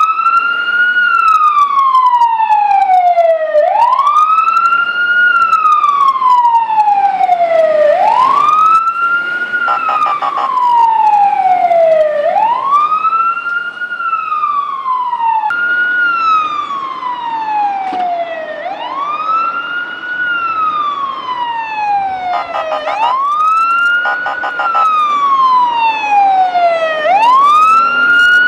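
Fire engine siren wailing loudly: each cycle climbs quickly in pitch and then slides slowly back down, repeating about every four seconds.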